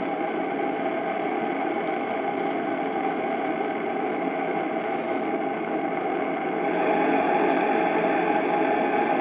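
Gas regulator of a live-steam model boat's burner making a strange, steady droning noise, with its doubled nitrile diaphragm oscillating at its regulation pressure of about 2 bar. The owner cannot explain the oscillation. The noise grows a little louder about seven seconds in.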